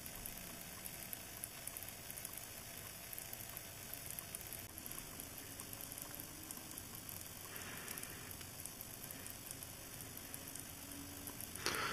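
Thin stream of used engine oil trickling from a motorcycle into a plastic drain pan, heard as a faint steady trickle with many small ticks. A brief louder noise comes near the end.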